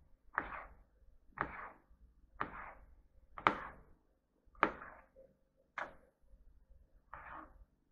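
Chef's knife cutting a raw tilapia fillet on a plastic cutting board. Each stroke goes through the fish and knocks on the board, about one cut a second, seven in all.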